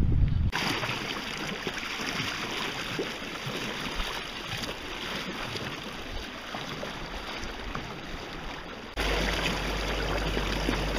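Water rushing and splashing along the hull of a small boat under way. About nine seconds in, the sound jumps louder to the churning wash behind an electric outboard motor's propeller, with a steady low rumble.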